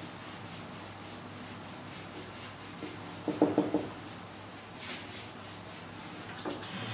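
Whiteboard eraser rubbed across a whiteboard, wiping off marker writing, with a quick run of about five harder strokes a little past the middle.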